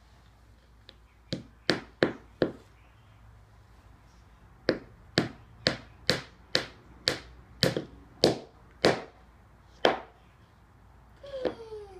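Claw hammer knocking wooden dowels into the edge of a particleboard bookcase panel: a quick run of four blows, a pause of about two seconds, then about ten steady blows a little under two a second.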